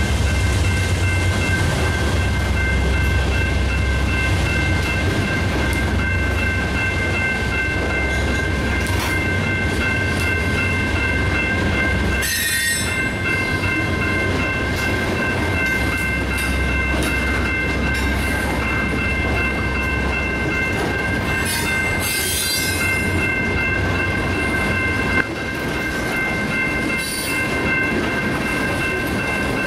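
Freight train of open-top stone hopper cars rolling steadily past a grade crossing, its steel wheels rumbling and clattering on the rails. There are two brief sharp screeching noises, about 12 and 22 seconds in. Steady high ringing tones from the crossing's warning signal sound throughout.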